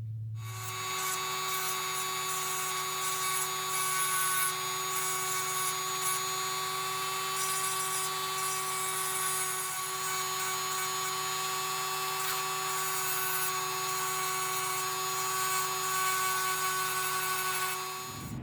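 Small high-speed power tool running at a steady pitch, a constant whine with hiss, cutting off near the end.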